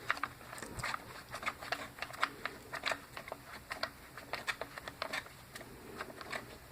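Irregular light clicks and taps of hard plastic pump parts being handled and worked loose while the pump housing is taken apart.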